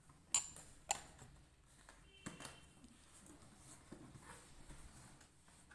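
Opal glass bowls clinking against each other as they are handled: two sharp clinks with a short ring in the first second, another clink a little after two seconds, then a few lighter knocks.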